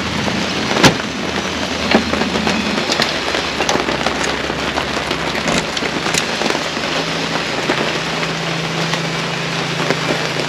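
Steady rain falling on the surfaces around the caravan. A few sharp clicks and knocks come through it, the loudest about a second in, as the caravan's exterior picnic-table hatch is handled and latched shut.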